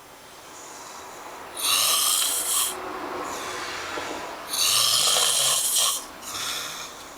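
A sleeping person snoring loudly: two long snores, each about a second long and about three seconds apart, with quieter breathing between them.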